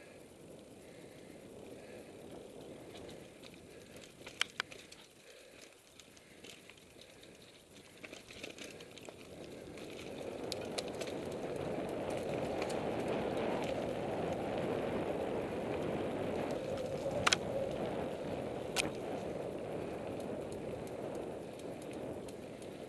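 Mountain bike rolling over a dirt forest trail: steady tyre rumble and rattle, growing louder about ten seconds in as it picks up speed, with a few sharp knocks from bumps, two of them close together near the end.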